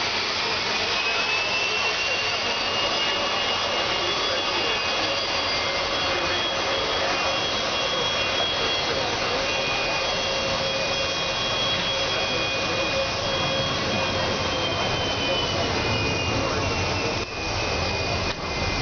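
Boeing 757's turbofan engines running at taxi power: a steady loud rush with a high whine that rises in pitch in the first two seconds and slides lower about fourteen seconds in.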